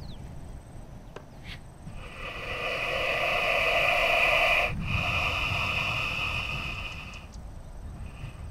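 Puff adder hissing: two long, breathy hisses back to back, starting about two seconds in, the first swelling louder and the second a little softer. It is the snake's warning hiss.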